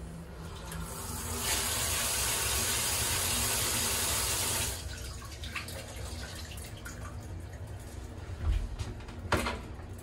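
A shower runs through a handheld shower head, set going with a chrome thermostatic mixer valve. The spray hisses for about three seconds and then shuts off abruptly, followed by scattered drips. A dull knock and a sharp click come near the end.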